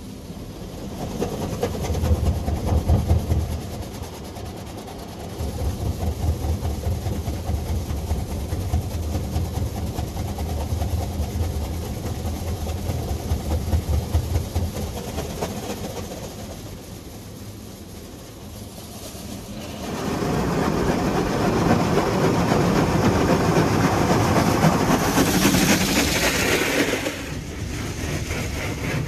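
Petit AccuTrac 360i automatic car wash heard from inside the car's cabin. For about the first half there is a low, pulsing rumble. It eases off for a few seconds, then a loud, steady rushing blast starts about two-thirds of the way in and lasts some seven seconds before dropping away near the end.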